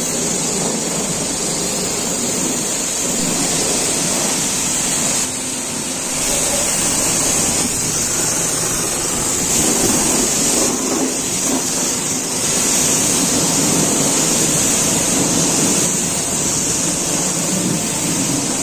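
Pressure washer's high-pressure water jet spraying the underside of a car's suspension and wheel well: a steady hiss of water striking metal and tyre.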